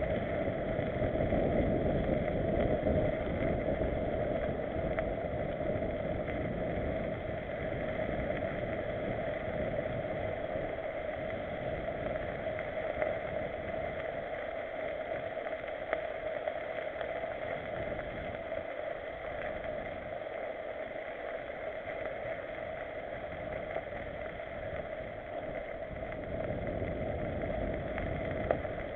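Mountain bike riding on a dirt forest trail: wind rushing over the camera microphone mixed with the rumble of tyres on the ground, a steady noise that eases a little in the middle, with a couple of brief sharp knocks.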